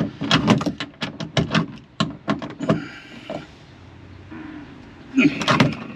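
Quick run of clicks and knocks from a wrench tightening a seat-belt anchor bolt, then a steady faint hiss and a short, louder clatter near the end.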